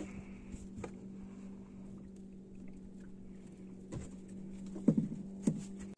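A steady low hum with a few soft clicks and knocks, two of them a little louder near the end.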